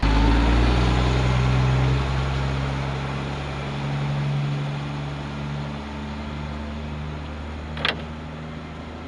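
A military cargo truck's diesel engine running as the truck drives past and away, its tyres swishing through shallow flood water on the road; the sound is loudest at first and fades as it goes. A brief high squeak sounds near the end.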